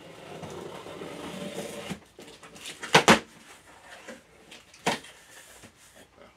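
Scissors working through packing tape on a cardboard shipping box: a scratchy rasping for about two seconds. Then two sharp snaps close together about three seconds in, and one more near five seconds.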